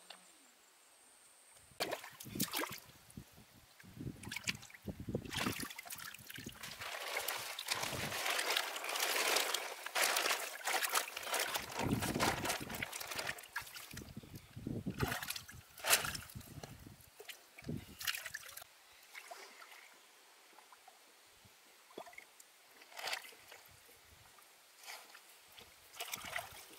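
Shallow water splashing and sloshing in irregular bursts, starting about two seconds in, busiest in the middle and thinning out towards the end.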